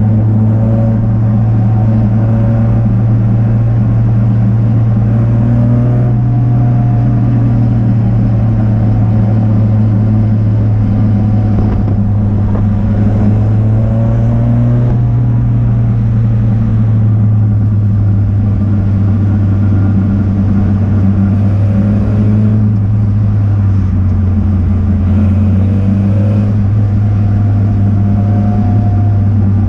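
Race car engine running under sustained load, a continuous loud drone whose pitch drifts slightly up and down.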